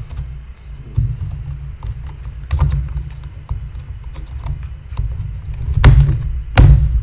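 Clicks and knocks of plastic parts being handled and pressed into place as the air filter is fitted back onto a chainsaw, over a steady low rumble. A few heavier thumps come near the end.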